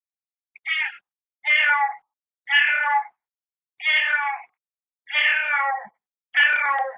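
A tabby-and-white cat meowing six times, about once a second, each a drawn-out cry falling slightly in pitch.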